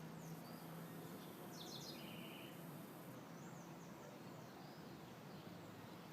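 Small songbirds chirping and trilling in short high phrases over a steady outdoor hiss. A low droning snore from a sleeping pit bull sounds through about the first second.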